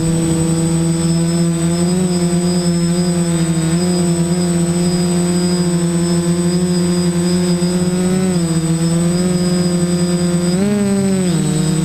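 Quadcopter's electric motors and propellers running in flight, heard from on board: a steady whine whose pitch wavers slightly with throttle, rising sharply and then dropping near the end. A thin, steady high-pitched tone sits above it.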